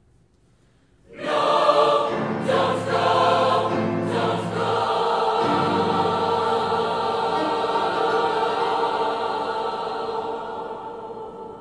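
Large mixed choir entering together about a second in and singing sustained chords, with the sound slowly fading toward the end.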